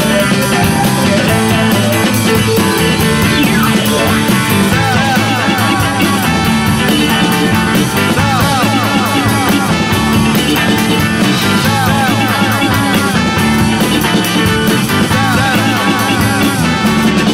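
Psychedelic rock song playing, an instrumental stretch with no singing, with repeated swooping lead lines over a steady band backing.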